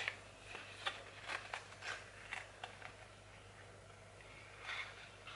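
Small cardboard product box being handled: a sharp click at the start, then a few soft clicks and paper rustles, and another rustle near the end.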